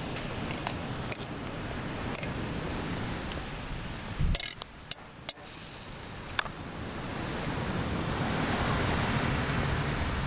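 Waves washing on the shore as a steady rush, swelling up near the end, with a few sharp clicks and knocks about four to five seconds in.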